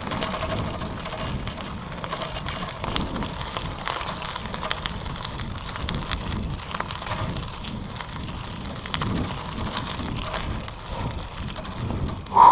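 Wind noise on the microphone over the crackle and rattle of a bicycle being ridden: a steady, uneven rush scattered with many small clicks.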